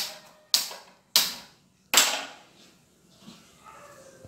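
Gas hob burner being lit: four sharp igniter clicks, about half a second to a second apart, before the flame catches.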